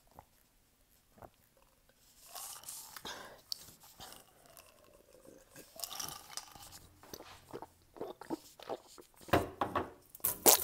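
Close mouth sounds of someone drinking from a glass and chewing: sips and wet smacks begin after a couple of quiet seconds. A run of sharper clicks follows, with the loudest knocks near the end.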